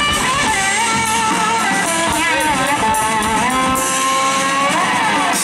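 Live rock band playing, with an electric guitar lead of bending, wavering notes on top. About four seconds in the bass and drums drop out, leaving a long held guitar note that bends upward near the end.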